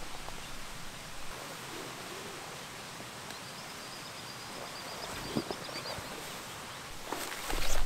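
Steady outdoor background noise with faint high warbling bird song for about a second and a half partway through, then a few knocks and rustling near the end.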